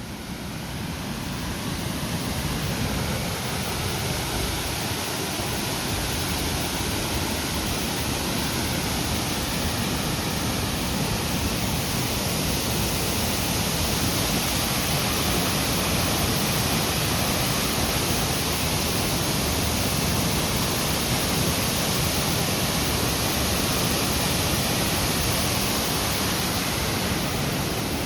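A waterfall pouring steadily, a constant rush of water that fades in over the first two seconds.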